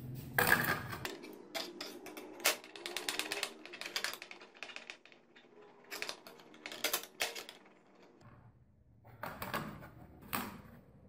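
Boiled potato being grated on a stainless-steel box grater: irregular rasping strokes and light clicks of the grater, with a louder knock at the start and a short pause about two-thirds of the way through.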